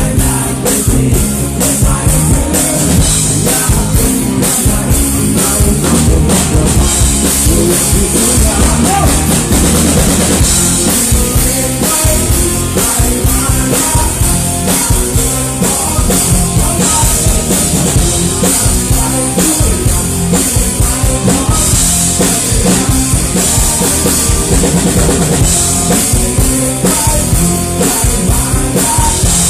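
Live rock band playing loud through the stage PA: a drum kit keeping a steady beat under electric guitar and bass guitar.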